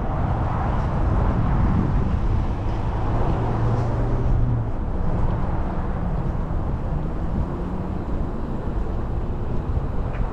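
Car moving slowly past a building, a steady rumble of engine and tyres with a low hum in the first half.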